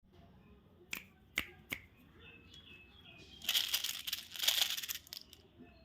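Three sharp clicks in quick succession about a second in, then a candy wrapper being crinkled and torn open in a dense crackling burst lasting about a second and a half.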